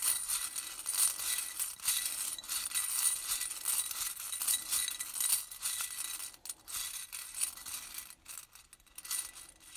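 A handful of small, hard number pieces being shaken and stirred together, a continuous clinking rattle that thins out near the end.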